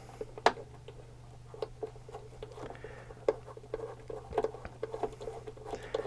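Small, irregular clicks and scratches of a precision screwdriver working screws loose on a computer's liquid-cooling unit, over a faint steady low hum.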